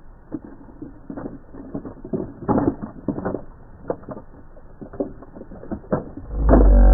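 Plastic toy car tumbling over and over down a dirt slope, its body and wheels knocking irregularly on the clods of earth. A loud low rumble comes in near the end.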